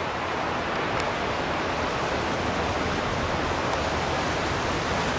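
Steady rushing wind noise on the microphone, an even hiss with no break.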